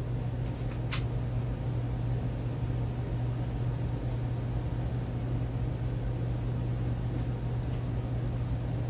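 A steady low hum with background hiss, broken by one sharp click about a second in.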